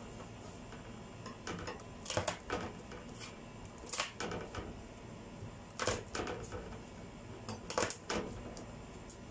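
Irregular knocks and clatters of things being handled and set down on a stainless steel kitchen sink, roughly one every second.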